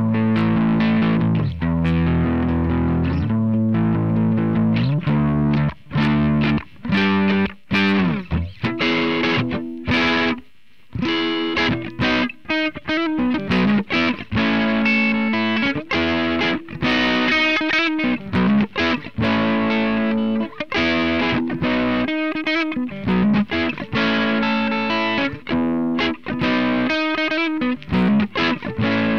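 Electric guitar with a distorted Line 6 POD 2.0 amp-modeller tone, recorded direct, playing riffs with frequent short stops between notes and a brief pause about ten seconds in. The guitar is an Ibanez RG370DX.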